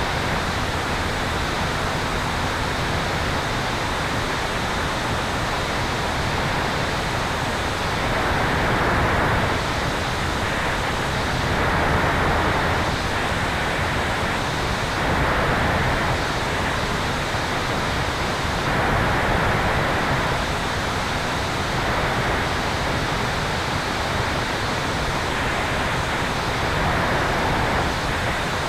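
Steady rush of airflow over a tail-mounted camera on an electric airplane in flight, swelling slightly every few seconds.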